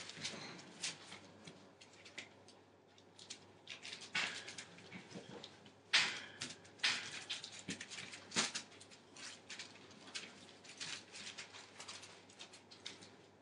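Entlebucher Mountain Dog puppies scrabbling about on newspaper: scattered rustling, scratching and claw clicks, with a louder crackle about six seconds in.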